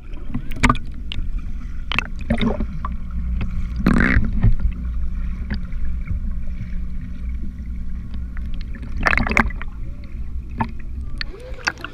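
Muffled underwater sound picked up by a submerged action camera: a steady low rumble and hum, broken by scattered bubbling and knocking noises, the loudest about four seconds in and again about nine seconds in.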